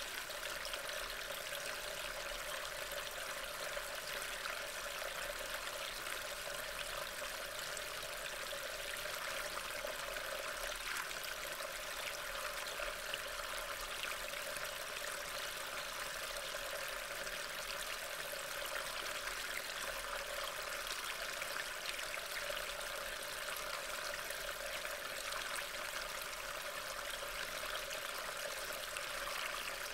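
Steady rain falling, a continuous hiss with many fine drop ticks, picked up by a trail camera's microphone.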